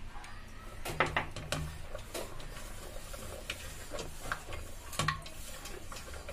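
Parboiled potato strips being tossed by hand with corn flour in a stainless steel bowl, with irregular clicks, knocks and scrapes against the metal as they are coated.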